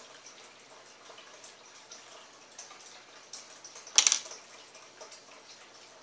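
Quiet room tone with faint small clicks, then a short, loud clatter of a small hard object being handled about four seconds in.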